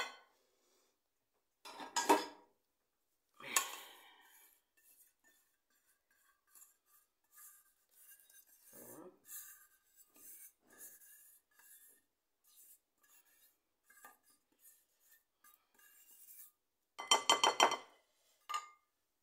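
Kitchen utensils clinking against dishes: a couple of sharp clinks, then a long stretch of light scraping. Near the end comes a quick burst of ringing clinks.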